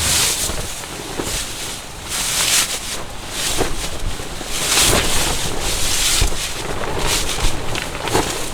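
Strong gusty wind buffeting the microphone, rising and falling in repeated surges, with a few short knocks in among the gusts.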